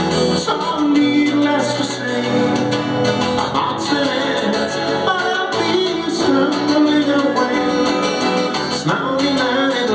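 A band playing a song live, with guitar prominent and some singing.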